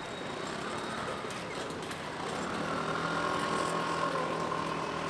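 A motor vehicle's engine running at a steady pitch amid outdoor street noise, its hum growing louder about halfway through.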